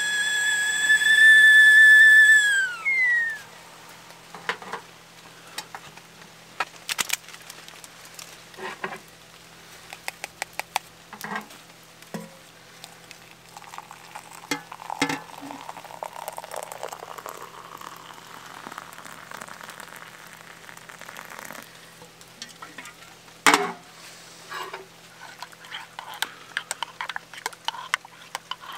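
Aluminium stovetop kettle whistling steadily at the boil, the whistle sliding down and stopping about three seconds in. Then hot water poured into an enamel mug with a rushing hiss, and a spoon clinking and stirring instant coffee in the mug, with one sharp clink near the end.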